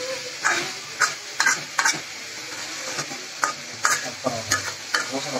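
Steel spatula scraping and knocking against a metal pot about ten times, at uneven intervals, as chicken pieces in spice paste are stirred. Under it runs a steady sizzle of the chicken frying in the masala.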